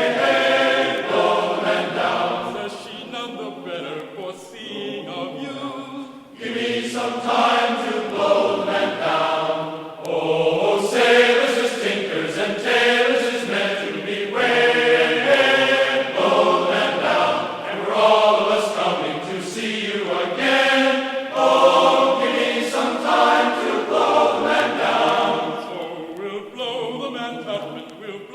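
Music with choir-like singing voices, sung phrases rising and falling in pitch.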